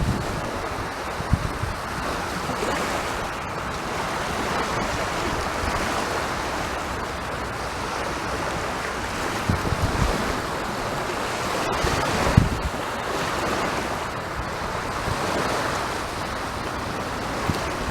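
Sea waves breaking and washing up the shore: a steady rush of surf that swells and eases every few seconds. A few low gusts of wind buffet the microphone.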